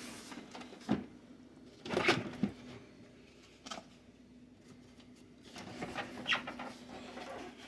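Scattered knocks, scrapes and rustling as a truck's center console is lifted and moved by hand, over a faint steady hum.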